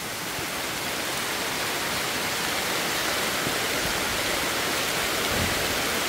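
Heavy rain pouring down, a steady dense hiss that builds slightly at first and then holds.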